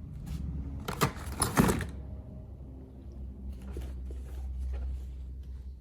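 Packaging and parts being handled: a burst of rustling and clicking about a second in, then a few lighter clicks, over a steady low hum.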